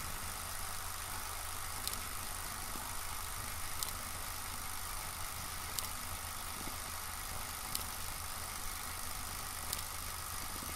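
Steady low hum and hiss, with a faint sharp click about every two seconds.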